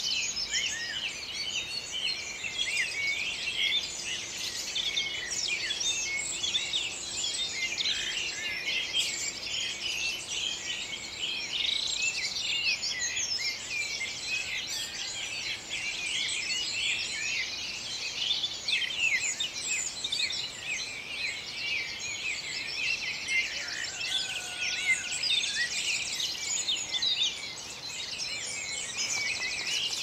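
Dense dawn chorus of many songbirds singing at once, near and far, so thick that no single bird stands out; among them song thrush, blackbird, blue tit, robin and wren.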